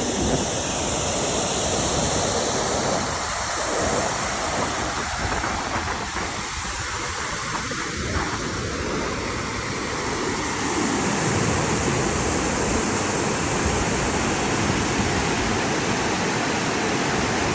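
Small waterfall's water rushing down, a steady full rush of falling water.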